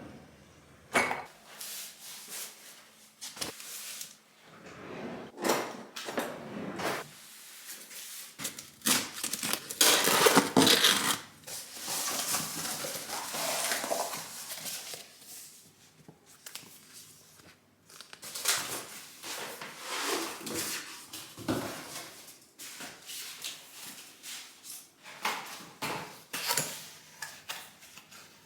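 Hands handling hard kitchen items, with scattered clicks and knocks, then rustling and tearing of a parcel's packaging as it is opened, loudest about ten seconds in.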